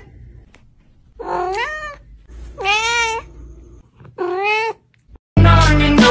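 Domestic cat meowing three times, each a short call a little over half a second long, the first rising in pitch.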